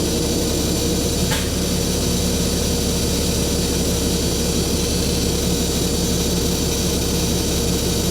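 Ford 750 dump truck's engine running steadily under load while its PTO-driven hydraulic pump raises the dump body, heard from inside the cab with the window down.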